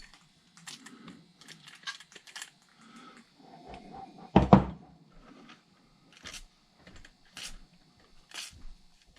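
Small clicks and knocks of hard parts being handled and set down on a workbench, with one louder knock about four and a half seconds in.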